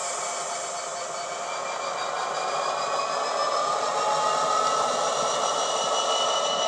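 Recorded Class 66 EMD two-stroke diesel engine sound from an ESU LokSound decoder, played through a model locomotive's small onboard speaker as the model runs with its train. The engine tones rise in pitch and get a little louder from about a second and a half in.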